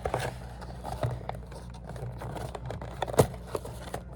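Blind-box packaging being worked open by hand: irregular rustling and scraping, with one sharp click about three seconds in, over a steady low hum.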